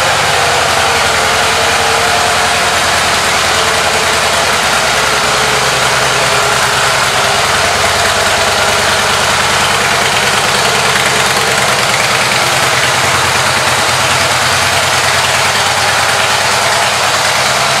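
Harley-Davidson Softail Deluxe's air-cooled Twin Cam 103 V-twin idling steadily, just after being started.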